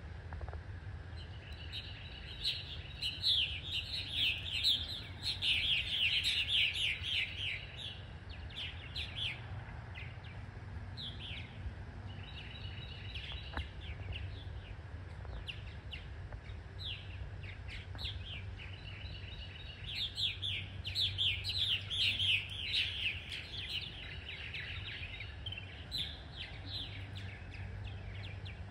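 Purple martins calling at their nest housing: quick runs of chirps, with two busier spells, one in the first several seconds and one about two-thirds of the way through. A steady low hum runs underneath.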